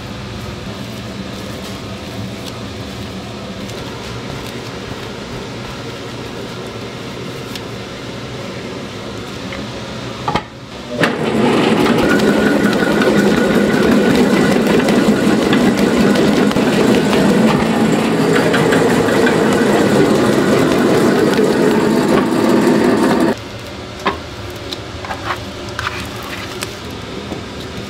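Rice-cake kneading machine running loudly for about twelve seconds, starting just before the middle, its steel bowl spinning and churning a ball of steamed rice and mugwort dough, then cutting off suddenly. Before it there is a steady low machine hum, and after it a few light knocks.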